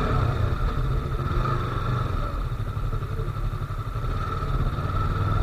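Yamaha R3's 321 cc parallel-twin engine running steadily while the bike is ridden, a low rumble with a steady whine over it and no revving.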